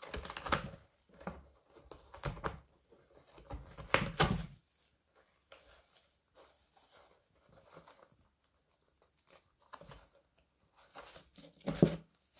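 A cat shifting about inside a cardboard box, its body scraping and rustling against the cardboard walls in irregular bursts. The loudest bursts come about four seconds in and again near the end.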